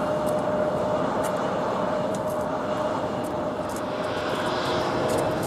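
Boeing 737 jet engines on landing rollout: a steady rush of engine noise with a constant whine.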